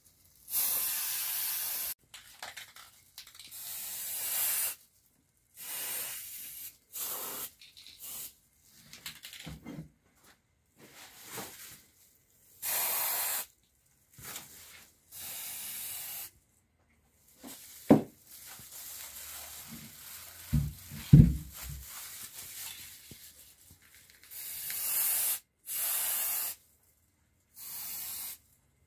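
Aerosol spray-paint can hissing in repeated short bursts of about a second each, with pauses between, as paint goes onto a metal motor housing. A few short knocks come about two-thirds of the way through.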